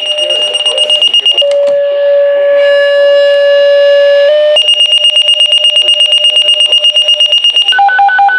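Fire dispatch paging tones heard over a scanner radio, marking a test page. First comes a long steady tone with a brief step to another pitch, then a rapid pulsing beep at about ten a second, then alternating high and low beeps near the end.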